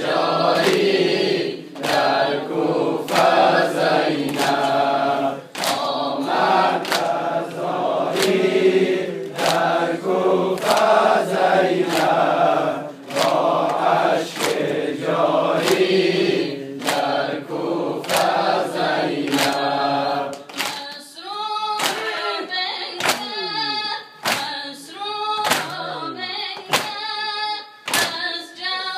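Shia noheh lament: a congregation of men chants in unison while beating their chests (sineh zani), the slaps coming steadily at about three every two seconds. About 21 seconds in, the group drops out and the reciter's amplified solo voice carries on over the chest beats.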